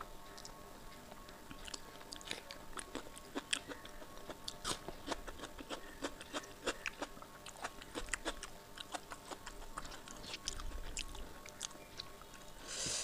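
Close-miked eating sounds: chewing and many wet mouth clicks on a hand-fed mouthful of rice with kadhi (yogurt curry) and pakoras. Near the end comes a louder squelching swish as fingers mix the rice into the curry.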